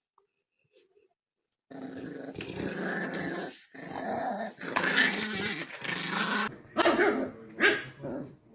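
A dog growling for several seconds, then breaking into short barks near the end, about three of them.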